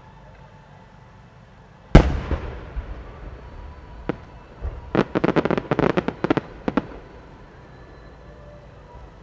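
A 12-inch aerial firework shell bursts with one loud boom about two seconds in, which rings out and fades over a second or so. About three seconds later comes a rapid string of many sharp cracks lasting under two seconds: the small sub-shells of the burst going off one after another.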